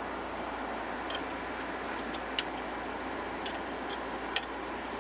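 A few sharp, light clicks and ticks from handling the loosened build plate of an Elegoo Mars 2 Pro resin printer, over a steady background hiss.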